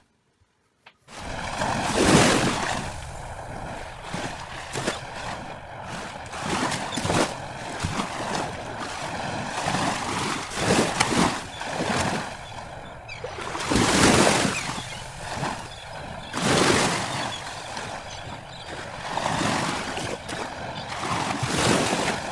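Sea surf: waves washing in, swelling and falling back every few seconds, starting about a second in.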